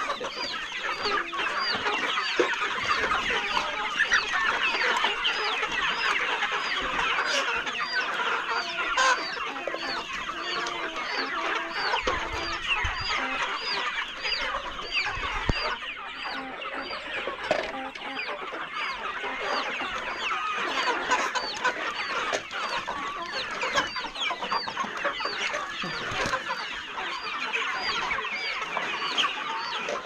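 A large flock of brown hens clucking and chattering continuously, many birds calling over one another. A faint high chirp repeats about twice a second behind them.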